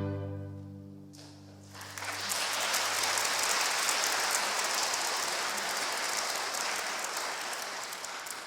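A string orchestra's last chord dies away, and about two seconds in the audience breaks into applause, which carries on steadily and fades near the end.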